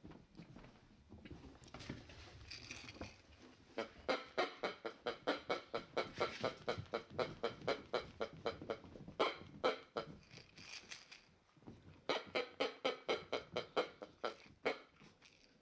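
Eight-week-old English Setter puppy making rapid, rhythmic breathy sounds at about five a second during play, in three bursts of several seconds each.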